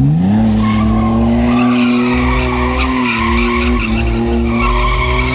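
BMW 535i's straight-six engine revving up sharply about half a second in, then held at high revs, while the tyres squeal steadily as the car slides.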